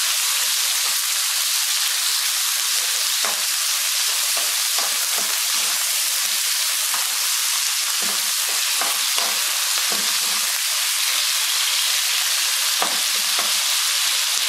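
Pieces of raw chicken breast sizzling steadily in hot sunflower oil in a nonstick frying pan, the oil well heated so the meat starts searing at once. A plastic spatula stirring the pieces adds occasional scrapes and light knocks against the pan.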